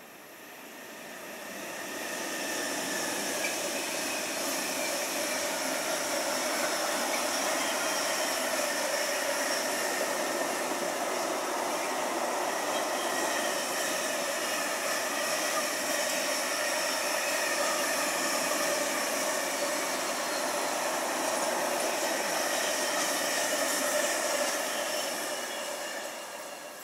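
Freight train carrying lorry trailers passing on the far track, its wheels running over the rails. The sound builds over the first couple of seconds, holds steady, then fades near the end.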